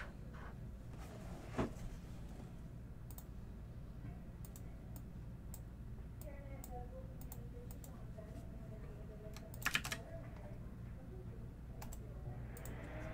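Quiet, sparse computer keyboard typing and clicks over a steady low hum, with a louder quick cluster of clicks near the end.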